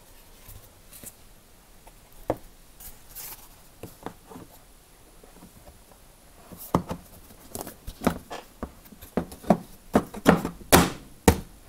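Plastic access panel being fitted back onto the underside of a dishwasher: scattered clicks and knocks of plastic handled and pressed into place, faint at first, then more frequent and louder in the second half.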